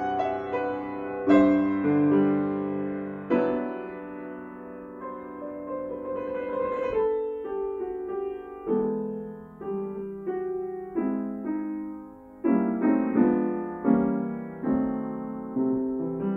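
Solo grand piano playing slow chords that are struck and left to ring, quieter through the middle and with closer-spaced, louder chords from about twelve seconds in.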